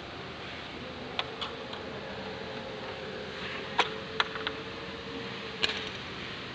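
A few sharp clicks and taps from hands handling an aluminium bifold door profile and its multipoint lock hardware. The loudest come about four and five and a half seconds in, over a steady background hum.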